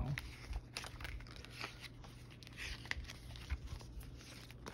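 Pages of a paper photobook being handled and turned: scattered soft rustles and paper flicks.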